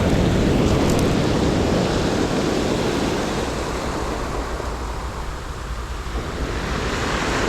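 Ocean surf washing onto the beach: a steady rushing wash that eases off about two-thirds of the way through and swells again near the end.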